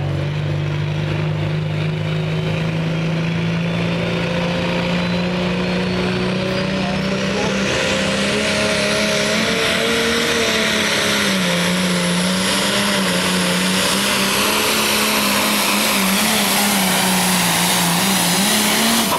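Light Pro pulling tractor's turbocharged diesel engine held at high revs, its turbo whine climbing steadily in pitch for several seconds as it builds boost at the line. From about halfway in, the engine runs flat out under load pulling the sled, its pitch wavering up and down.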